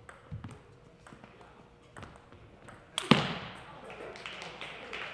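Table tennis rally: a ping-pong ball ticking lightly off the paddles and table about once a second, then a loud hard hit about three seconds in that echoes through the hall and ends the point. Spectators' voices rise after it.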